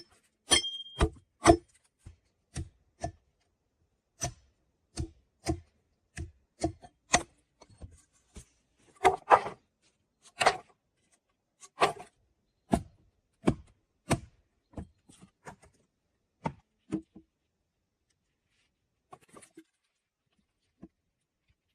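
Sharp wooden knocks and clunks as firewood is worked, coming irregularly about once or twice a second, then stopping a few seconds before the end with a few faint taps after.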